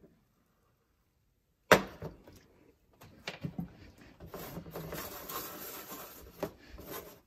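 Dead silence for about a second and a half, then a sharp knock, followed by light clicks and scrapes of a nonstick frying pan and rubber spatula on a glass-top electric stove over a faint steady hiss of omelet eggs cooking.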